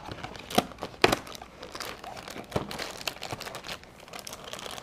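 Cardboard cookie box being torn open and handled: crinkling and rustling of card and packaging, with a few sharp snaps and clicks in the first half.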